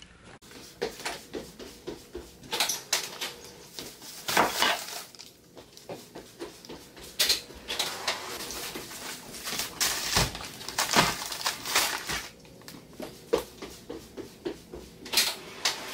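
Groceries being set down on a tile floor: plastic shopping bags rustling, with irregular clunks and knocks as bagged items and cases of drinks are put down.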